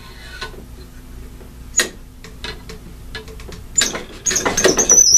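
A cleaning rod pushing a solvent-wet patch through an AR-15's barrel: a sharp click and light tapping of the rod against the rifle, then a stretch of scraping and rattling as the patch is forced along the bore, with a high squeak near the end.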